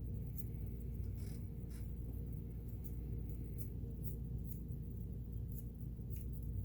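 Light clicks and rubbing from hands handling and cleaning the parts of a Kenmore 1802 sewing machine, with a scratchy rub about a second in, over a steady low hum.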